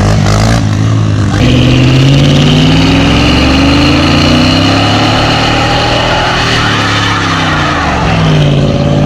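Pickup truck engine held at high revs during a tyre-smoking burnout, the revs sagging briefly near the end and climbing again. Before it, in the first second or so, a dirt bike is heard going by.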